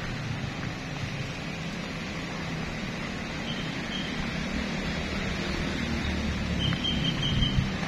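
Outdoor ambience with a steady low rumble, with a few short high chirps about halfway through and again near the end.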